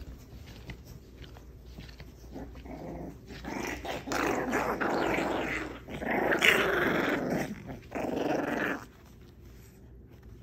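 Four-and-a-half-week-old American Bully puppies growling as they play-fight, in a run of loud, rough bouts that start a couple of seconds in, peak just past the middle and stop shortly before the end.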